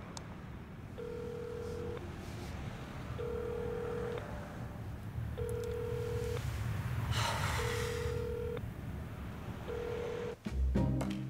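Telephone ringback tone of an outgoing call: a steady low beep about a second long, repeating every two seconds or so, five times, over the low hum of a car cabin. A short hiss sounds midway, and a low thud comes near the end.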